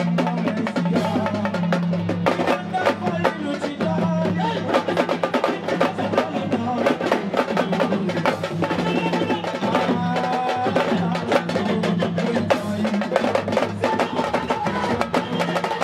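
Live band music driven by dense, fast hand drumming over a steady bass line.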